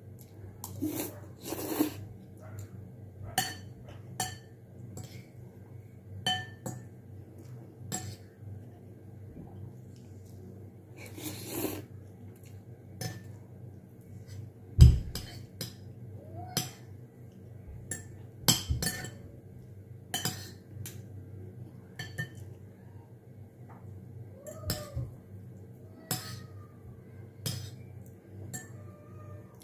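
Metal spoon and fork clinking and scraping against a ceramic bowl during eating: irregular light clicks and taps throughout, with one heavier knock about halfway through.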